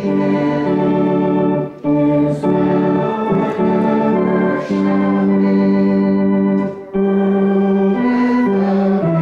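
Organ playing slow, sustained chords that change every second or so, with brief breaks about two seconds in and just before seven seconds.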